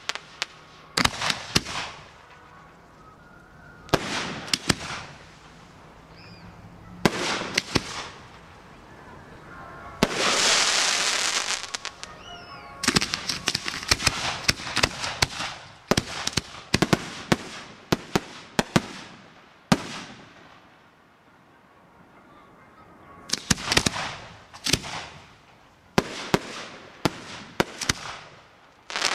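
Aerial fireworks bursting overhead: sharp reports in quick volleys, with a stretch of dense hissing crackle about a third of the way in. There is a short lull about two-thirds of the way through before another rapid volley.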